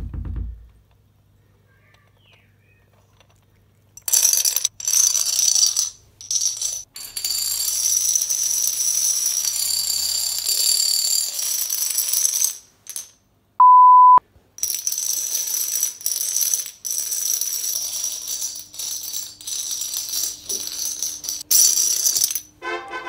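Rows of plastic dominoes toppling in chain reactions on a wooden floor: a rapid, rattling clatter that comes in several long runs with short breaks. A short, loud, steady beep cuts in about halfway through.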